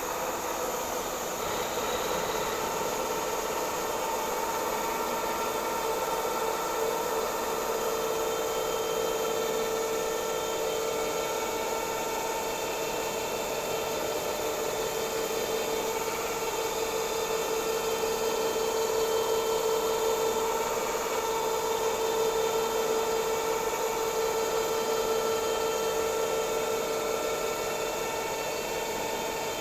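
Bridgeport milling machine running a 3-flute end mill at 325 RPM, plunging into a 1045 steel shaft to cut a keyway. The cutting is a steady sound with a constant whine that swells slightly through the middle.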